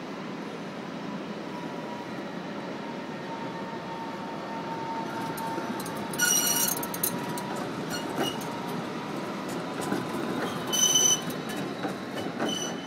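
Low-floor city tram passing close by, a steady running hum with a faint whine, then its wheels squeal on the rails in short high-pitched bursts about six seconds in and again near the end, with clicking between them.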